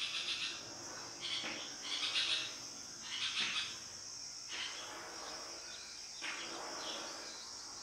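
Chalk scratching on a chalkboard in six or so short strokes, each under half a second, as a Devanagari letter is written by hand.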